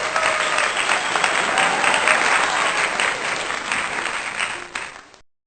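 Crowd applauding, a dense patter of clapping that fades away near the end.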